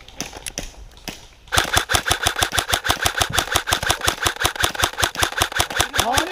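Airsoft rifle firing on full auto: a rapid, even stream of shots starting about a second and a half in and lasting close to five seconds.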